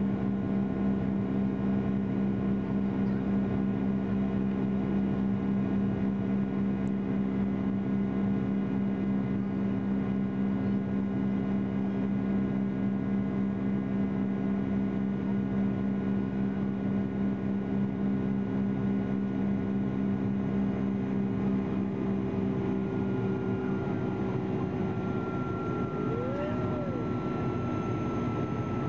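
Jet airliner cabin drone during the climb after takeoff: a steady engine hum with a strong low tone. About two-thirds of the way in, a higher whine comes in and slowly falls in pitch.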